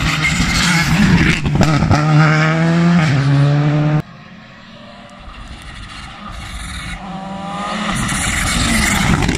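Rally car engine at full throttle coming up the stage, its pitch stepping with quick gear changes, cut off abruptly about four seconds in. Then another rally car is heard faintly at first and growing louder as it approaches.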